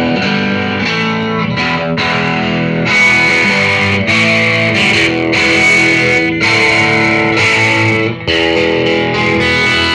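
MJT Telecaster-style electric guitar playing a run of chords and ringing notes, each struck anew about every second.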